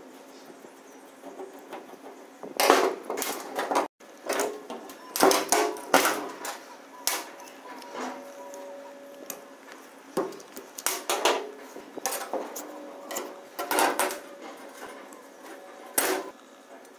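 A hand saw being taken apart on a metal worktable: irregular sharp clicks and knocks as screws, plastic handle pieces and the steel blade are handled and set down, starting a couple of seconds in.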